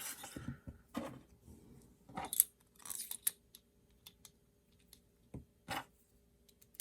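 Small metal pen parts and refill cartridges being handled and set down on a desk: scattered light clicks, clinks and short scrapes.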